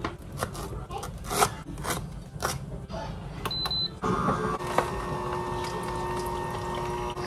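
A knife chopping ginger root on a wooden cutting board, sharp chops about twice a second. About four seconds in, a Jocuu slow masticating juicer's motor takes over, running with a steady hum as its auger crushes the ginger.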